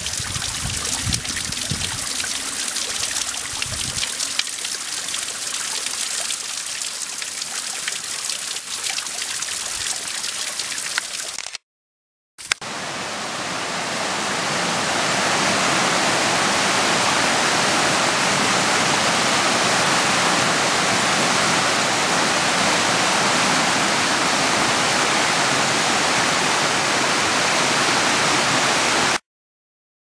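Running water: a small hill stream trickling and splashing over rocks. About twelve seconds in it cuts out briefly, then comes back as a louder, steady rush of water that stops shortly before the end.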